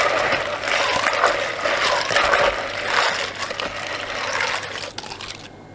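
A spoon stirring a bucket of iced orange fruit tea, liquid swishing and ice churning in steady strokes. It fades out near the end.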